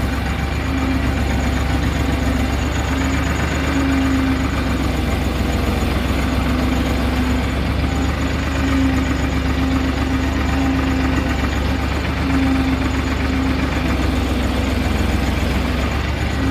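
Massey Ferguson 5245 tractor's three-cylinder diesel engine running steadily while the tractor drives along pulling a loaded trolley, heard close up from the seat.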